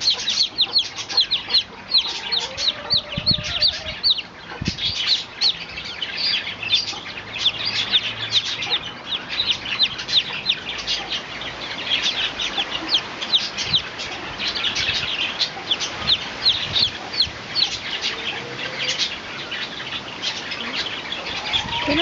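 Chicken chicks peeping continuously: a steady stream of short, high-pitched, falling peeps, several a second.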